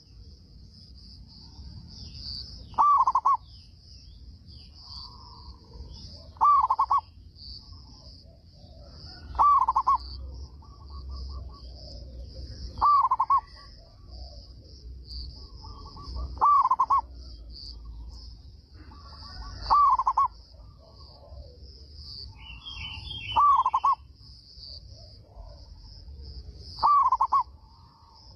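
Zebra dove (perkutut) cooing its repeated song, one loud short phrase about every three and a half seconds, eight times. A steady high hiss and fainter calls run underneath.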